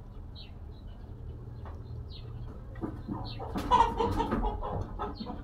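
Chickens clucking, with faint high chirps throughout. The clucking is loudest about three and a half to five seconds in.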